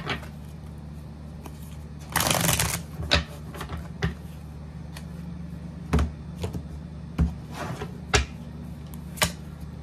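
A deck of tarot cards being shuffled by hand: a brief rushing riffle about two seconds in, then a series of short, sharp taps and slaps as the cards are cut and squared.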